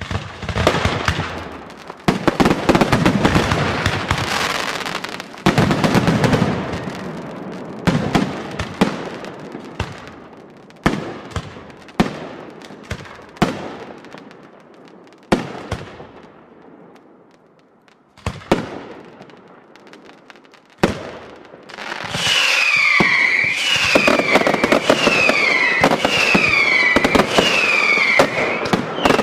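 Fireworks display: sharp bangs of bursting shells with dense crackling, starting suddenly, then single spaced bangs in the middle. Near the end a dense barrage sets in with shrill falling whistles repeating about once a second.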